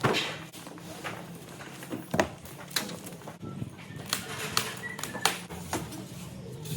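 Packaging of a boxed fridge being handled and opened: an irregular run of sharp knocks, clicks and scrapes, with a few short squeaks in the middle, over a steady low hum.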